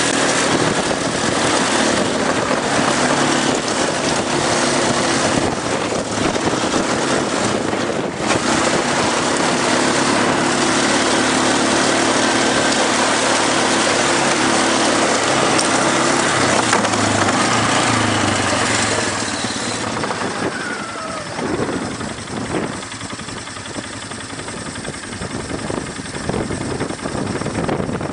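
ATV engine running steadily under a heavy rush of wind on the microphone. Near the end the engine note drops away and mostly wind buffeting remains.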